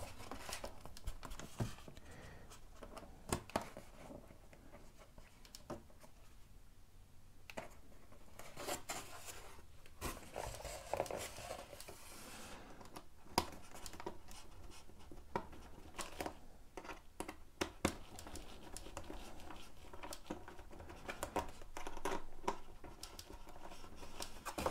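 Small screwdriver driving control-horn screws through an EPO foam tail surface into a backing plate, with the foam parts rubbing as they are handled: faint scratching and scattered small clicks.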